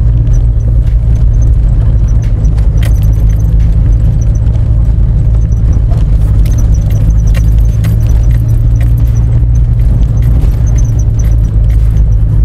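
Car engine and road noise heard from inside the cabin while driving up a dirt road. There is a steady low drone throughout, with scattered light clicks and rattles from the car bouncing on the unpaved surface.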